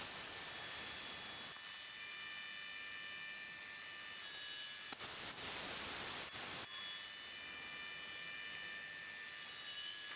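K&T rotary head milling machine running with a steady hiss and several faint high whining tones, the hiss swelling for over a second about five seconds in.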